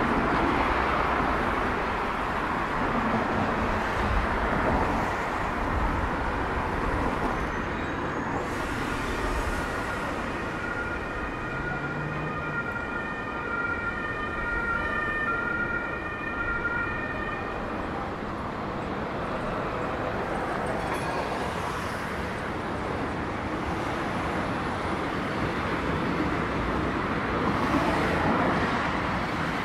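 City street traffic: cars and trams passing on a wide avenue. For about eight seconds in the middle a steady high ringing tone rises above it, then fades.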